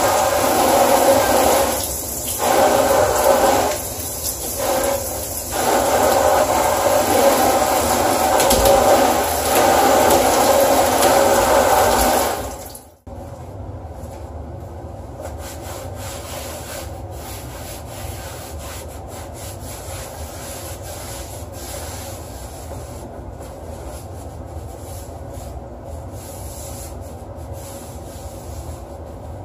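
Handheld shower head spraying water over metal-framed bar stools, the spray briefly easing twice, then shut off abruptly about 13 seconds in. After that, quieter rubbing of a cloth wiping the stools down.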